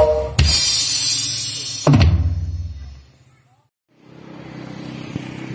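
Drum-heavy music played loud through a large PA stack, with a class D amplifier (D1K5 Pro) on the mid-high speakers and a D2K5 on the subwoofers: a crash with bright highs, then one heavy bass-drum hit, both ringing out and fading away. After a second of silence a steady low hum comes from the speakers.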